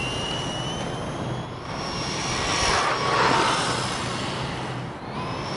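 Stock 3800kV brushless motor of an HBX 901A RC buggy, running on 2S, whining high and steady at full throttle on a top-speed run. A louder rush of noise comes about three seconds in.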